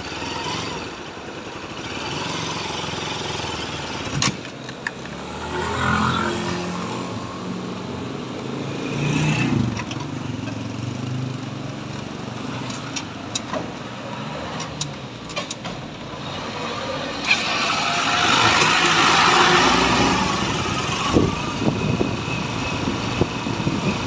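Engine and road noise from a vehicle riding along a street, with other traffic passing. The noise swells louder for a few seconds past the middle.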